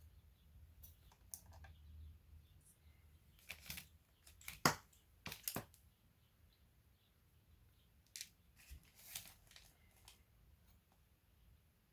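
Scattered small clicks and taps of hands and tools working on a laptop's parts, with a sharper click about halfway through and another run of taps a few seconds later.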